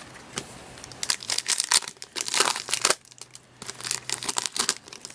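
Foil wrapper of a 2013-14 SPX hockey card pack being torn open and crinkled by hand, in quick crackling bursts starting about a second in, with a short pause about three seconds in before more crinkling.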